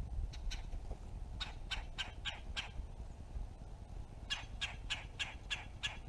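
Red-bellied woodpecker calling: a couple of faint notes, then two quick series of five or six short notes each, about four a second, the second series starting about four seconds in.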